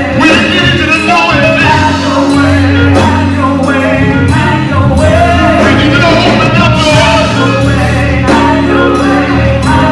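Live gospel praise-and-worship song: several singers on microphones over a band with electric guitars and bass, played loud and without a break.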